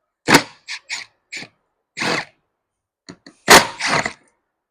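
Hard clicks and knocks from a steering wheel assembly being pulled back apart by hand to free a trapped wire. About seven separate hits, the loudest a third of a second in and another past three and a half seconds, followed by a quick cluster.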